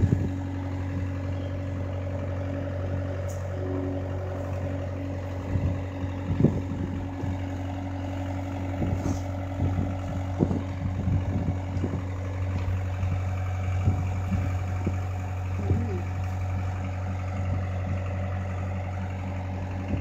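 A skid steer loader's engine idling steadily, a constant low hum. Irregular knocks and clunks come between about five and sixteen seconds in.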